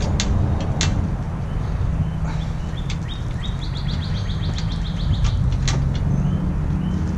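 A bird calls, with a rapid trill of evenly repeated high notes, about eight a second, in the middle and a few single chirps around it, over a steady low rumble. A few sharp clicks sound as parts are handled at the car's front end.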